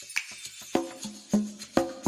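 Background music: a light percussive track with woodblock-like taps and plucked or struck pitched notes in a steady beat.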